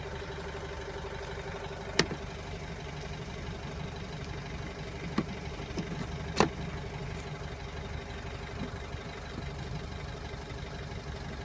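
2003 Toyota Yaris 1.4 D-4D four-cylinder diesel engine idling steadily, with a few sharp clicks on top, the loudest about two seconds and six and a half seconds in.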